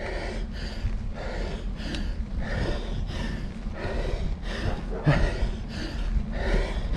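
A cyclist's hard, rhythmic panting, about two breaths a second, from the effort of climbing a very steep grade, over a steady low rumble.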